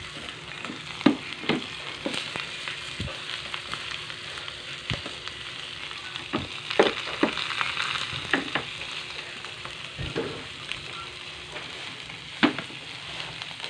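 Dried salted fish (tuyo) sizzling and spattering in hot oil in a nonstick frying pan, a steady hiss broken by scattered sharp taps and clicks as the fish and a wooden spatula touch the pan.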